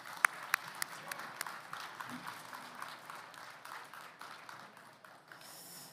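Audience applauding, a dense patter of hand claps with a few sharp single claps near the start, fading away over the few seconds.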